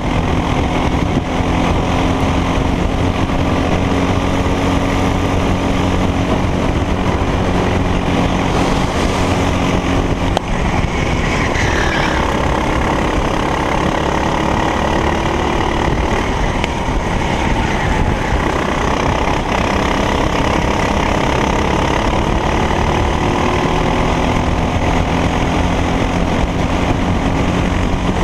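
Racing kart engine running hard at race speed, its pitch rising and falling as the revs change.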